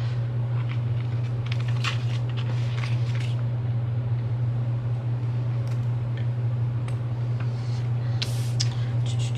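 Paper planner stickers being handled, peeled and pressed onto planner pages: soft rustles and crackles, mostly in the first three seconds and again near the end. A steady low hum runs underneath.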